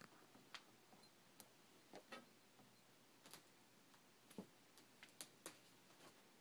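Near silence: room tone broken by about ten faint, irregular clicks and ticks.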